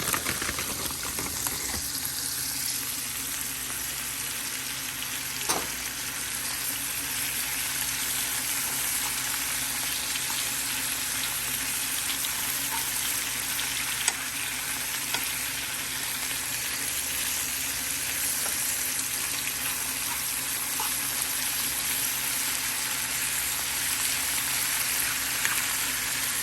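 Onions, mushrooms and spinach sizzling as they sauté in a frying pan, a steady hiss, with a couple of light knocks about five and fourteen seconds in.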